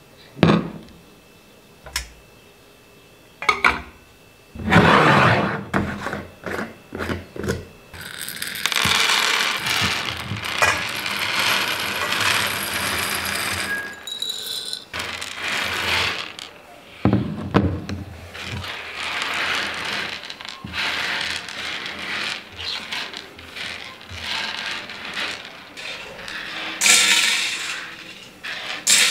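Dried beans being handled at a wooden table: a glass jar is set down with a click and its lid unscrewed, then the beans are poured out onto the tabletop in a long rattling stream. After that they are slid across the wood by hand and dropped clattering into a metal bowl as they are sorted.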